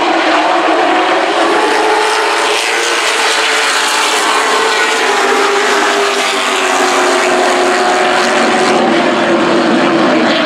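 Race engines of several super trucks running on an oval track. The engine notes overlap and drift slightly up and down in pitch as the trucks circle.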